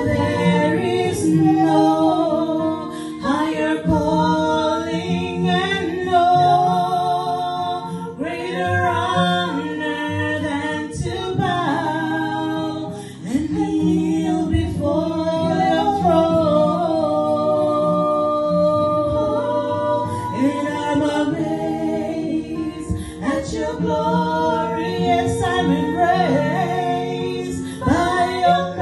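Two women singing a gospel song together into handheld microphones.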